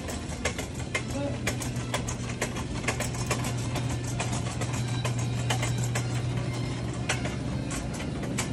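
Shopping cart pushed across a hard store floor: a steady low rumble from the rolling wheels with irregular rattling clicks from the wire basket.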